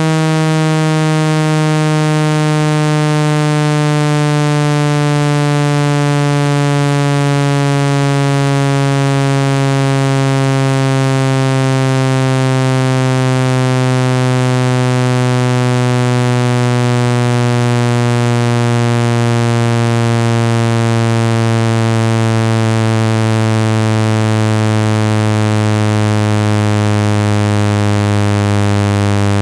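Synthesized speaker dust-removal tone: a loud, buzzy low tone with many overtones that glides slowly downward in pitch, meant to vibrate dust out of a phone speaker grille.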